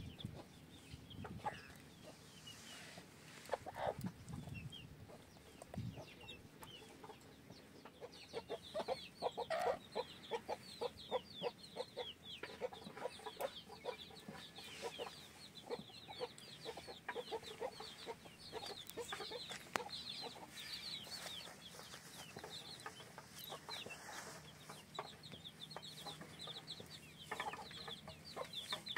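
Chickens clucking, with many quick high-pitched chirps joining in from about eight seconds in.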